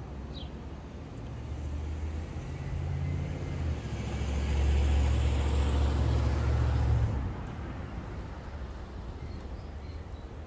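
A van driving past, its engine rumble and tyre noise building over the first few seconds, loudest around the middle, then dropping off sharply about seven seconds in.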